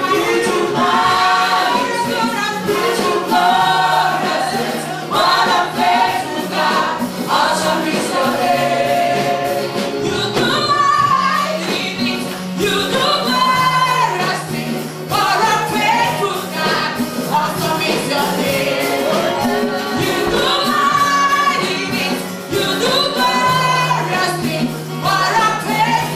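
Gospel praise and worship song: a group of singers with a steady instrumental accompaniment and sustained bass notes.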